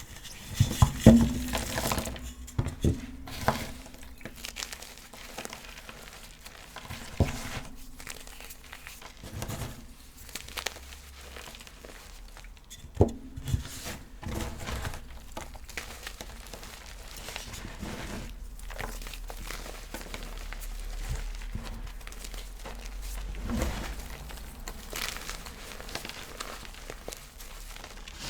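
Chunks of pressed gym chalk crunching and crumbling as they are crushed: irregular sharp crunches with a powdery crackle between them, the loudest cluster about a second in and another sharp crunch about halfway through.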